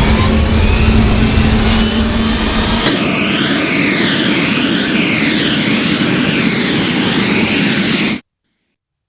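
Dubbed jetpack engine sound effect: a loud rushing roar with a low steady hum that about three seconds in changes to a high-pitched jet whine with a tone wavering up and down. It cuts off suddenly about a second before the end.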